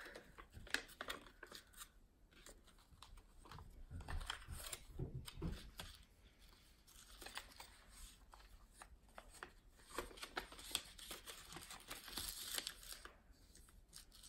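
A sheet of paper being folded and creased by hand into a paper airplane against a wooden floor: faint, irregular rustling and crinkling with short clicks.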